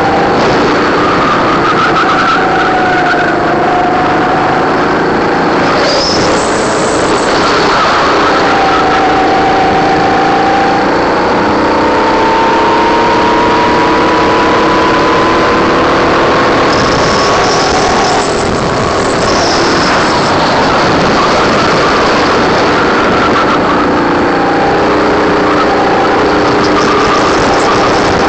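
Racing kart engine running hard under the onboard camera, its note rising and falling as the kart speeds up and slows through the corners. The pitch climbs slowly for about ten seconds along a straight, then drops briefly and climbs again.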